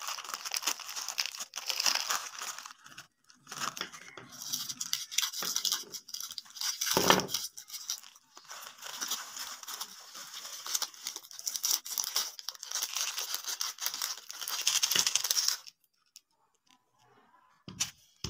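Plastic snack wrappers crinkling and tearing open, with scissor snips through the packaging: a dense, crackly rustle that cuts off a few seconds before the end.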